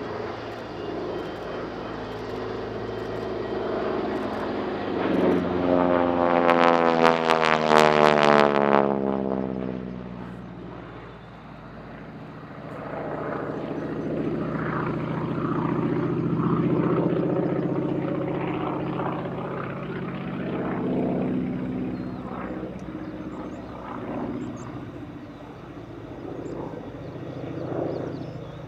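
North American SNJ-3 Texan's Pratt & Whitney R-1340 nine-cylinder radial engine and propeller at display power. The plane passes close about seven seconds in, loud, with the pitch falling as it goes by. The drone then swells again and fades as the aircraft manoeuvres and climbs away.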